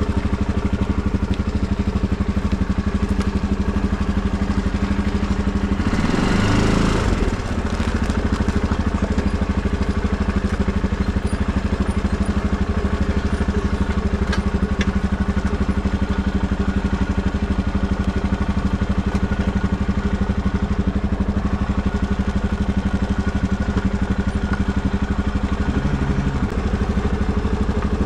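Tractor engine running steadily, with a brief louder surge about six seconds in.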